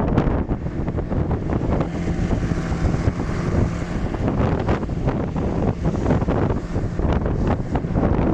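Strong wind buffeting the microphone aboard a small open fishing boat, with waves slapping and splashing against the hull in choppy water. A steady hum runs underneath from about two to four seconds in.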